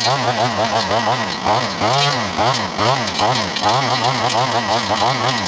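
A gas multitool trimmer's small two-stroke engine running. Its speed rises and falls over and over, about three swings a second, as it works through weeds and brush.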